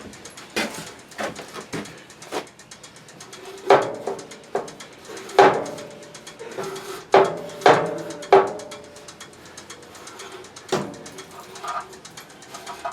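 A tool striking a metal pressure washer part: about a dozen irregular knocks, each with a short metallic ring, the hardest blows coming in a cluster midway through.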